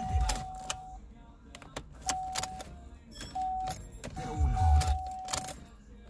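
Keys jangling and clicking as the ignition key of a 2010 Chevy Cruze is pulled out and pushed back in, the owner's workaround for a car that won't crank. A steady electronic chime tone switches on and off several times, and there is a low rumble about four seconds in.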